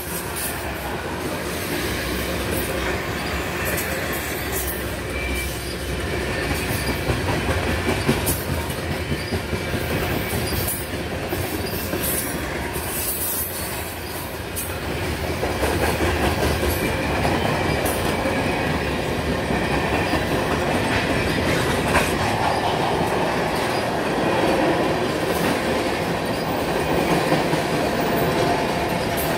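Freight train of tank cars rolling past close by: a steady rumble of steel wheels on rail, with sharp clicks as wheels cross rail joints and now and then a brief high wheel squeal.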